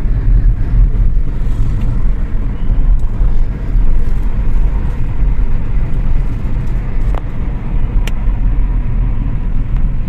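Steady low rumble of road and engine noise inside the cabin of a Kia Seltos cruising on a highway, with a faint click about eight seconds in.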